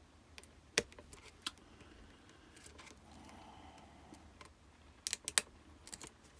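Small metallic clicks and ticks of lock picks and a tension tool working in a Union D-Tec euro cylinder lock: a few scattered ticks, then a quick cluster of louder clicks about five seconds in.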